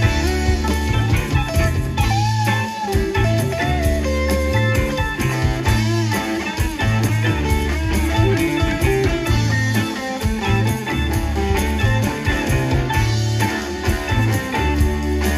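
Live rock band playing: an electric guitar lead line with bent notes over a repeating bass figure, drums and keyboard.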